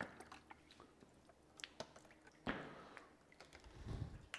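Faint handling of plastic cups of water being set down in a chest freezer: scattered light clicks and taps, a sharper knock about two and a half seconds in, and a low rumble near the end.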